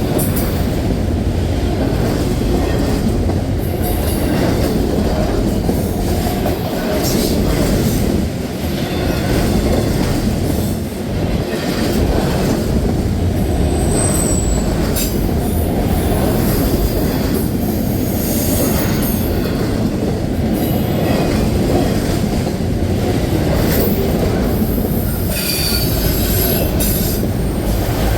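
A train rolling past close by: a steady, loud rumble of wheels on rail, with faint clicks and a few short, high wheel squeals, one about halfway through and another near the end.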